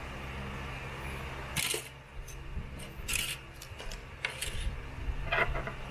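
Small tools and parts being handled on a workbench: a few short scrapes and clicks over a steady low hum.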